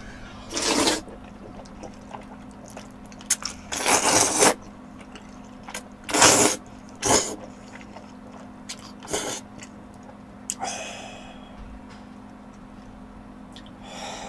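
A person slurping and eating jajangmyeon (noodles in black-bean sauce) with chopsticks: six or so short, loud slurps spread through, the longest about four seconds in, with quieter chewing between.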